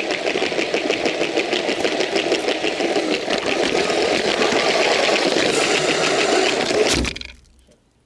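A small electric motor running steadily with a rapid, even ticking, then stopping suddenly about seven seconds in.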